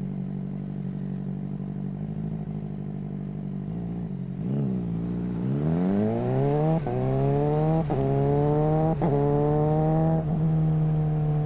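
Suzuki GSR600 inline-four through a GPR Ghost exhaust, holding steady revs, then accelerating hard with three quick clipped upshifts about a second apart, typical of a quickshifter cutting the ignition for each shift. Near the end the throttle closes and the revs slowly fall away.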